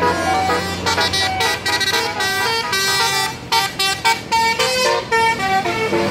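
Bus telolet horn, a multi-tone musical air horn on an intercity bus, playing a quick tune of short notes that jump from pitch to pitch, with a few brief breaks in the second half.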